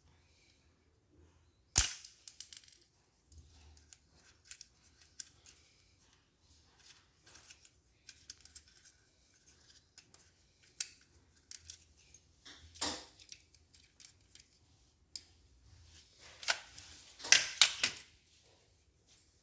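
Sharp metal snaps and clicks of retaining clips being pried off the clutch shafts of a copier drive unit, with small tool and parts handling noises in between. The loudest snap comes about two seconds in, another near thirteen seconds, and several follow in quick succession near the end.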